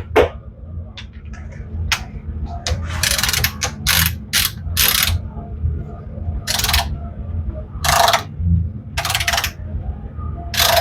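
Ratchet head of a torque wrench clicking through short strokes as it tightens a bolt through a 10mm socket, the bursts bunched together in the first half and then coming about a second apart.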